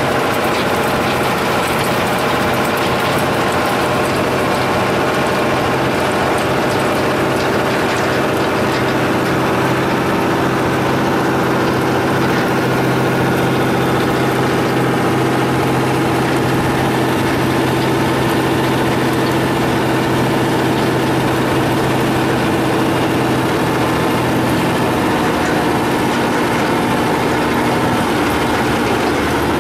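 Unimog engine running at a steady, even speed, heard from inside the cab while driving slowly.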